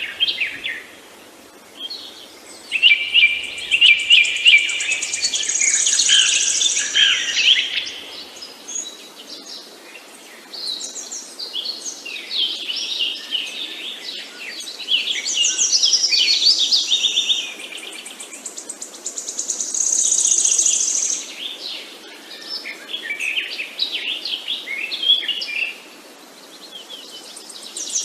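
Songbirds chirping and singing in quick, high phrases that come in bursts with short pauses between them, over a faint steady background hiss.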